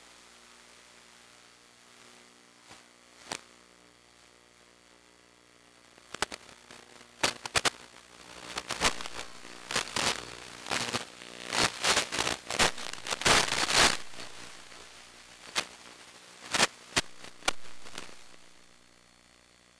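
Crackling radio static in the FPV video receiver's audio, over a steady low hum: scattered pops at first, then dense bursts of crackle from about six seconds in, heaviest near the middle, dying away near the end.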